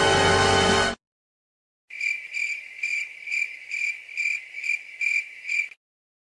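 Intro music cuts off about a second in. After a short silence comes a stock cricket-chirping sound effect, the classic 'awkward silence' crickets, with about two even, high chirps a second for nearly four seconds before it stops.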